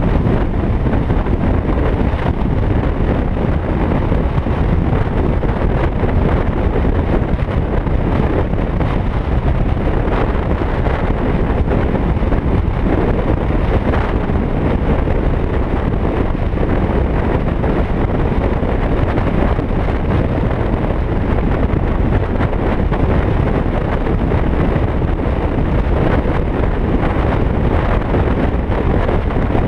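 Steady wind rush over the camera microphone of a Suzuki Bandit motorcycle under way, with the bike's inline-four engine running beneath it at a steady pace.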